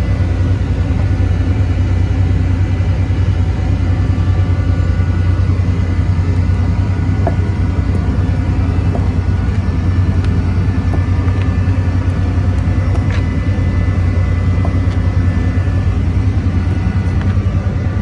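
Steady low drone of a fishing trawler's engine running, unchanging throughout, with faint steady higher tones above it.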